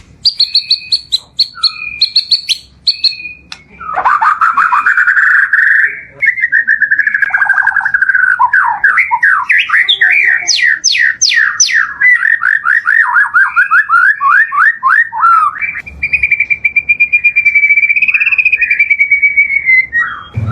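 Murai (white-rumped shama) singing loudly and without pause, in full 'gacor' form. Its varied song is packed with learned phrases ('isian'): sharp high chips at first, then a long run of rapid, repeated slurred notes, and near the end one long wavering whistle.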